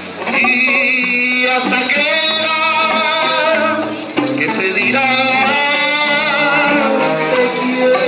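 Live five-piece street band playing a bolero: a saxophone and trombone melody over electric bass, hand drums and acoustic guitar. The melody comes in two long phrases of held, wavering notes, with a short dip between them about four seconds in.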